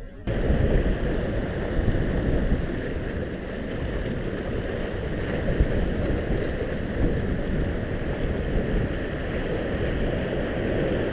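Wind buffeting the camera microphone over waves washing against the shore rocks: a loud, steady rumbling rush that cuts in suddenly at the start.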